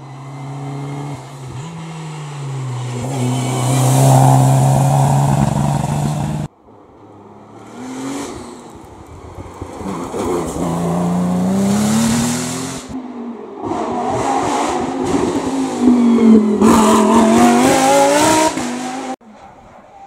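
Racing car engines revving hard as three cars in turn accelerate up a hill road, one of them a Porsche 911. Each pass rises and falls in pitch through the gears and cuts off suddenly.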